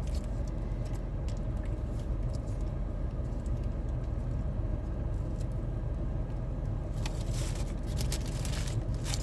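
Steady low background rumble, with a few light clicks and rustles, most of them near the end.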